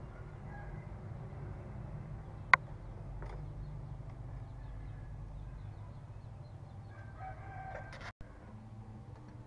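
A rooster crowing faintly in the background near the end, over a steady low rumble, with one sharp click about two and a half seconds in.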